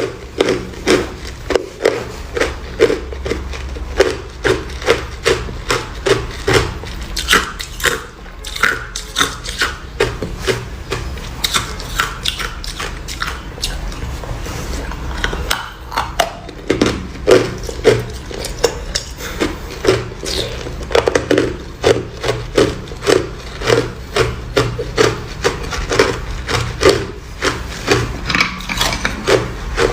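A person chewing crushed clear ice close to the microphone: steady, rhythmic crunching about two bites a second, with sharper crackling crunches now and then.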